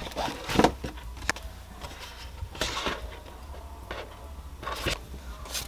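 Plastic food packaging crinkling and rustling in several short bursts as a meal-kit box's clear plastic lid and wrapped ingredient packets are handled.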